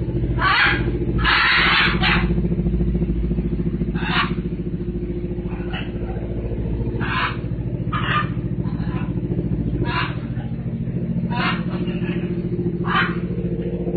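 Macaws giving short harsh squawks, about a dozen at irregular intervals of a second or two. Under them runs a steady low motor-like hum.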